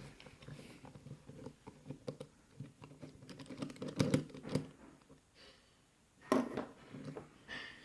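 Small metallic clicks, taps and scrapes of a flat screwdriver working at the parts of a padlock being taken apart, with a few louder knocks about four seconds in and again near the end.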